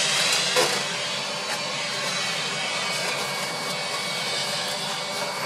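Vacuum cleaner running steadily for dust extraction: an even rushing hiss with a faint high whine.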